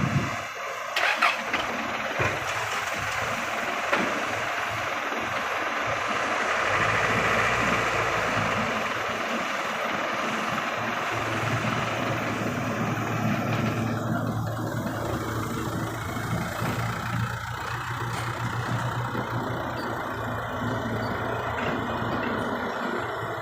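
Heavy diesel engine of earthmoving machinery running steadily, with a few sharp knocks in the first few seconds. A deeper engine hum builds about a third of the way in.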